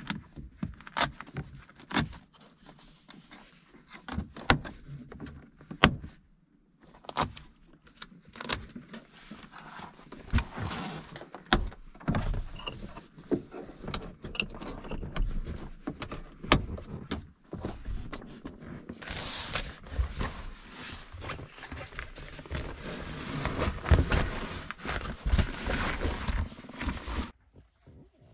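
Sharp clicks and knocks with fabric rustling as Suzuki genuine-option window shades are pressed into the car's windows and pleated curtains are drawn. The clicks come singly, a second or two apart, in the first half; the second half is a denser run of rustling and handling.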